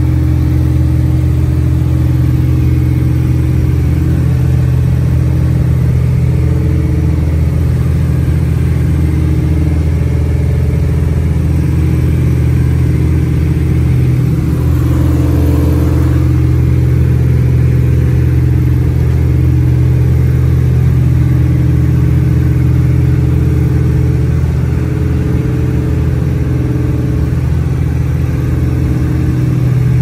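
Twin piston engines of an Aero Commander L-26B in cruise flight, heard inside the cockpit as a loud, steady, low drone.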